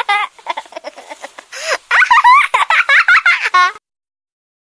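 A baby laughing in quick, high-pitched giggles, with a breathy gasp in the middle before a louder run of laughs, which cuts off suddenly near the end.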